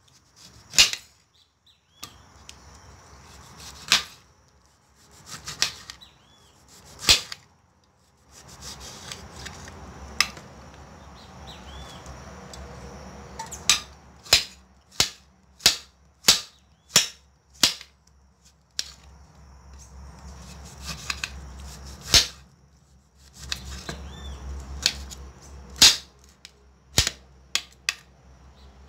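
Kitchen knife chopping on a cutting board: sharp, irregular knocks, in places in quick runs of about two a second, as whole fruit and vegetables are cut into cubes. A low hum comes and goes in the background.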